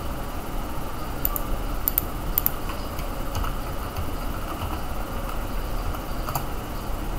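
Computer keyboard being typed on: scattered key clicks, several in quick pairs early on and a few single ones later, over a steady low background hum.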